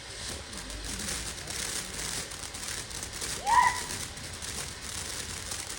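A small firework fizzing and crackling. A brief high squeal about three and a half seconds in is the loudest moment.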